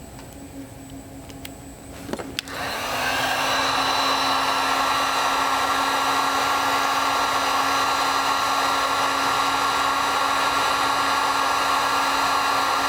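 A heat gun clicked on about two seconds in; its fan spins up and then runs steadily with a constant whine, heating the heat-shrink cover on a crimped wire terminal.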